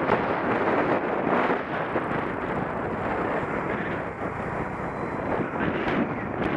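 Steady wind rush on the microphone of a camera mounted on a moving bicycle, mixed with the noise of road traffic.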